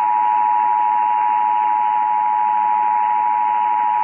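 Emergency Alert System attention signal, the steady two-tone alert of 853 and 960 Hz, coming through a small portable radio's speaker over AM static hiss. It marks the start of an EAS Required Monthly Test broadcast.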